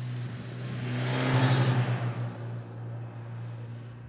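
Motorcycle riding past, its engine and road noise swelling to a peak about a second and a half in and then fading away.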